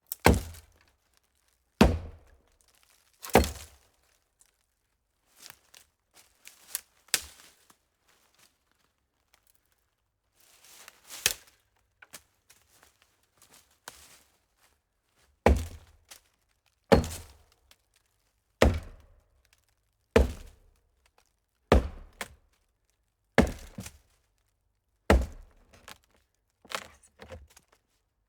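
Axe chopping into a hollow tree trunk: single hard, thudding strikes with a short ring-off. After three loud blows, a quieter stretch follows with lighter knocks. Then the chopping settles into a steady rhythm of a loud strike about every one and a half seconds.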